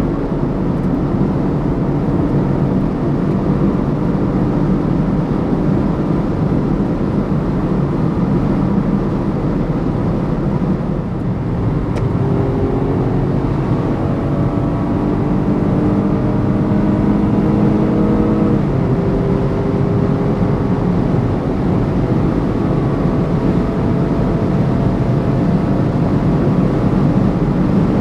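BMW M135i xDrive running hard at high autobahn speed, engine note over steady road and wind noise. The engine pitch climbs slowly as the car gains speed, drops once at a gear change about two-thirds of the way through, then climbs again.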